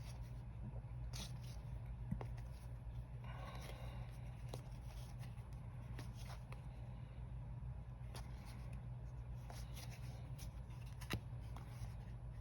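Tarot cards being handled and turned over: faint sliding and soft clicks over a steady low hum, with a brief scrape about three seconds in and a sharper click near the end.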